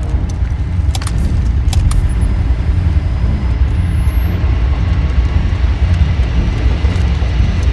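Military helicopter heard from inside the cabin: a loud, steady, deep rotor and engine drone. A few sharp clicks come in the first two seconds, and a thin high whine rises near the middle.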